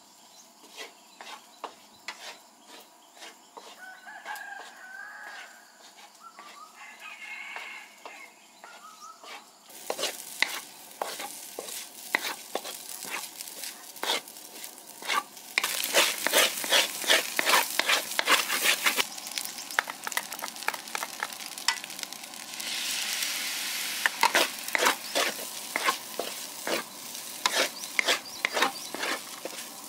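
Spatula scraping and knocking against a wok while fried rice with egg, shrimp and carrot is stir-fried, with stretches of sizzling. The stirring gets much louder about a third of the way in; a rooster crows twice in the first few seconds.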